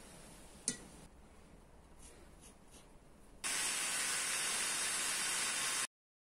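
A sharp click, a few faint ticks, then a steady spraying hiss for about two and a half seconds that cuts off suddenly.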